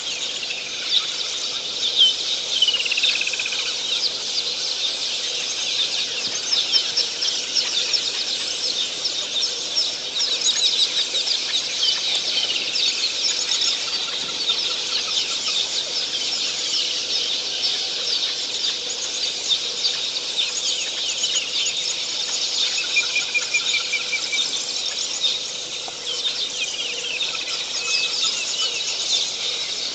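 Dense chorus of wild birds chattering, with many short high calls overlapping throughout, a falling whistle about two seconds in and a quick trill a little after twenty-three seconds.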